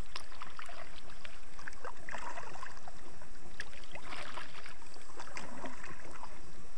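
Water splashing and sloshing around a kayak being moved through a shallow creek, in irregular bursts with the loudest about two and four seconds in.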